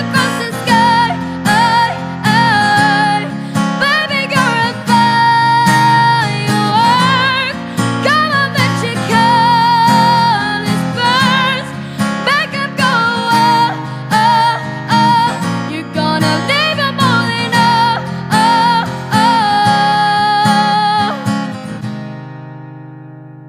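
Music: acoustic guitar strumming under a high voice holding long, wavering notes without clear words. It ends on a chord that rings on and fades away about two seconds before the end.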